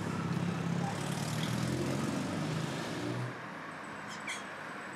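A motor vehicle's engine running close by with a low rumble that drops away abruptly about three seconds in. A bird gives a couple of short high chirps near the end.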